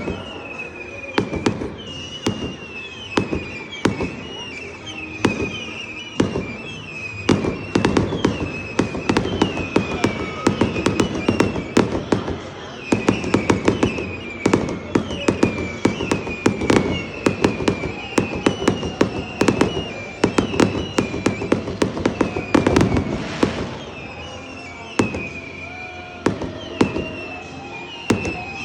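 Fireworks show: a rapid, irregular run of bangs and pops from aerial shells going off, with heavier volleys clustered now and then. A repeated short, high wavering tone sounds through it.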